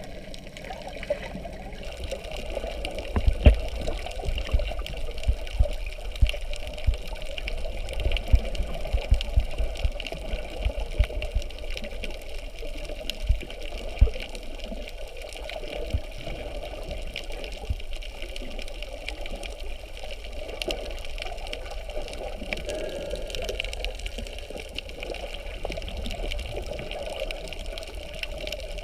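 Underwater sound picked up by a camera in its waterproof housing: a steady muffled rush of moving water, with a run of sharp low thumps from about three seconds in until about fourteen seconds in.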